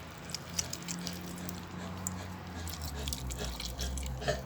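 Scattered soft, wet clicks and squelches of boiled chicken heads being mashed by hand for a puppy's food.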